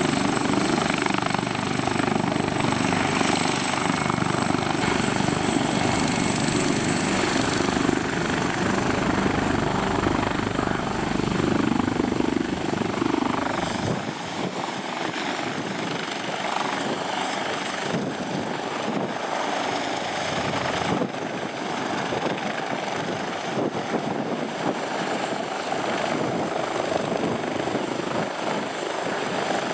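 Leonardo UH-139C (AW139) helicopter's twin turboshaft engines and rotor running, a steady high turbine whine over rotor noise. The whine rises slightly in pitch about eight seconds in, and about halfway through the sound turns a little quieter, with less low rumble.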